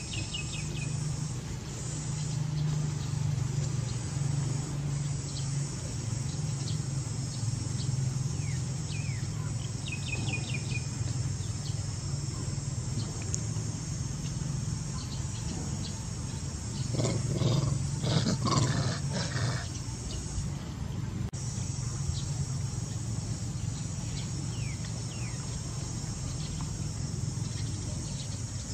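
Steady high chorus of crickets or cicadas over a low, continuous rumble, with a few short bird chirps. About 17 seconds in, a louder rough sound lasts a couple of seconds.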